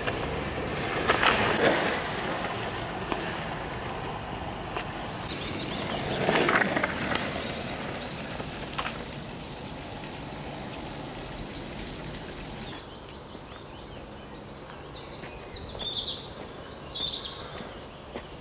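Longboard wheels rolling on asphalt, swelling loudest about a second in and again around six seconds. Near the end a bird sings a few short, high chirping phrases.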